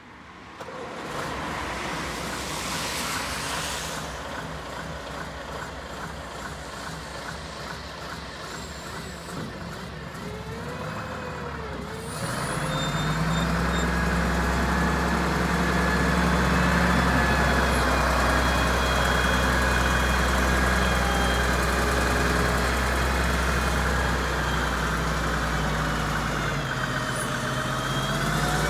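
Volvo L90B wheel loader's diesel engine: quieter mechanical sound at first, then about twelve seconds in it starts and runs steadily.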